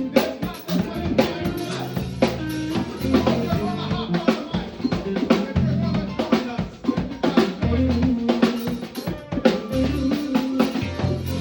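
Live band playing an instrumental passage: a drum kit with snare, rimshot and bass drum hits over low held bass notes.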